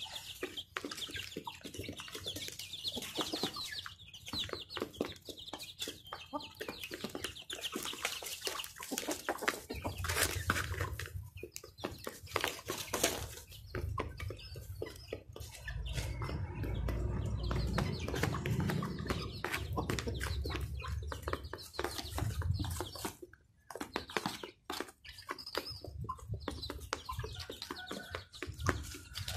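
Chickens clucking as they feed, over a dense patter of beaks pecking feed off cardboard. A low rumble runs through the middle.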